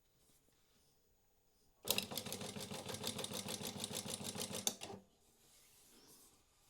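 Prosew PS-1903SX industrial walking foot sewing machine stitching out a programmed pattern, about eight stitches a second for around three seconds. A sharper clack comes as it starts and again as it stops.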